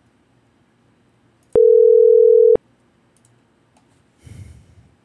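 Telephone ringback tone heard over the line: the called number ringing once, a steady tone about a second long in the middle of a three-second pause. A brief faint rustle follows near the end.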